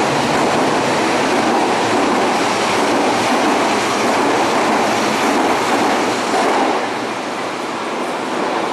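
Yellow Berlin U-Bahn train running along the platform and out of an underground station: a steady rumble of wheels on rails that eases off about seven seconds in.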